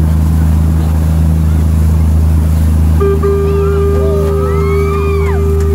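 Tour boat's engine running at speed with a steady low drone, over the rush of its churning wake. About halfway in, a steady held tone starts, with a few short rising-and-falling sounds over it near the end.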